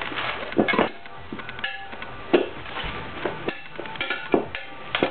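Tyre levers and hands working a tyre onto a Honda Today scooter wheel: irregular metallic clinks and knocks of the lever against the rim, with scraping of the tyre bead over the rim.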